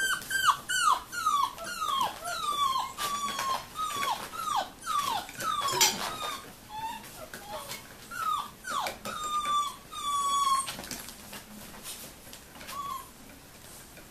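43-day-old Rhodesian Ridgeback puppies whining: a run of high, falling whimpers, about two a second, thinning out after about ten seconds. Light clicks and knocks sound among them.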